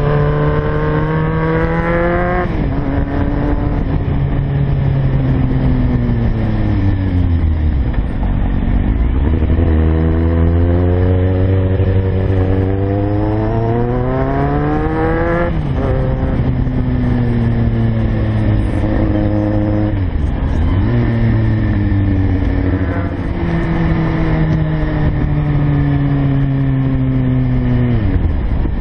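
Kawasaki Z750 motorcycle engine running under way on a twisting road. The revs climb steadily and drop sharply twice, about two seconds in and about halfway through, and sag and pick up again several more times as the bike slows and accelerates.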